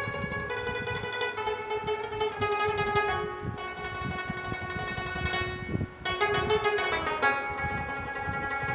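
Background music played on a plucked string instrument, quick picked notes over held tones.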